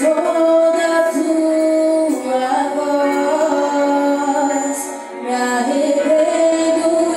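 Worship song sung with instrumental accompaniment, a female voice most prominent, in long held notes. It starts abruptly and dips briefly about five seconds in before the singing resumes.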